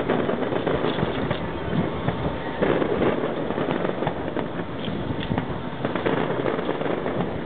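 Distant fireworks going off in a steady run of pops and crackles.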